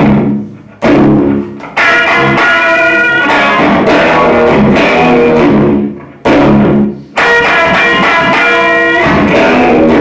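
Electric guitar playing chords and phrases through a slapback echo effect, each note followed by a single short repeat. The playing breaks off briefly twice.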